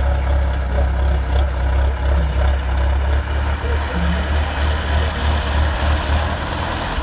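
Engine of heavy road-repair machinery idling with a steady, deep low rumble.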